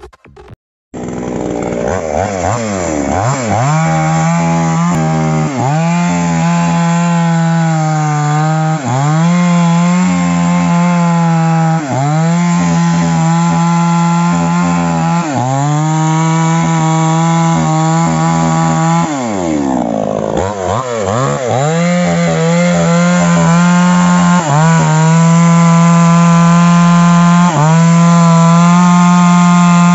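Small Falcon two-stroke chainsaw running at high revs as it cuts into a tree trunk. Its engine pitch sags and climbs back every few seconds as the chain bites into the wood, with one longer drop toward idle about two-thirds of the way through.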